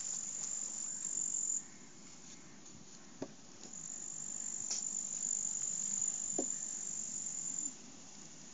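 An insect singing a continuous, high-pitched buzzing trill. It breaks off about a second and a half in, starts again about two seconds later, and runs for about four seconds before stopping near the end. A few faint clicks fall in the gap and during the second bout.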